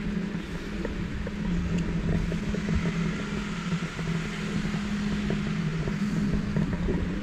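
Brushless motors of a Removu R1 camera gimbal humming steadily, a low tone that steps in pitch now and then as the camera turns, picked up by the GoPro's own microphone. Under it runs the hiss of street traffic.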